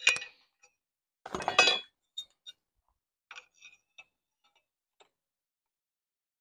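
Metal parts and tools being handled: a sharp click, then a short clattering rattle about a second in, followed by several light ticks and clinks.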